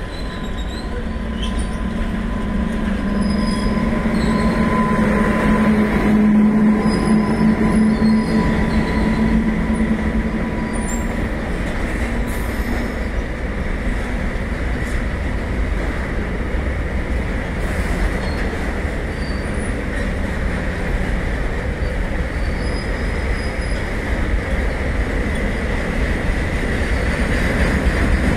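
An electric locomotive runs past, followed by a long rake of enclosed car-carrier wagons rolling by at speed with a steady rumble of wheels on rail. A low hum fades about ten seconds in as the locomotive goes by, and a thin high wheel whine carries on throughout.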